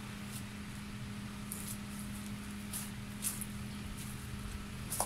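Small petrol engine of a garden multi-tool idling steadily after sawing, with a few brief rustles of movement through dry brush.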